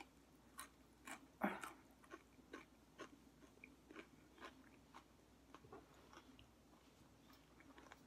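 A person chewing food close to the microphone, soft mouth clicks coming roughly twice a second. The loudest is about one and a half seconds in, and they grow fainter later.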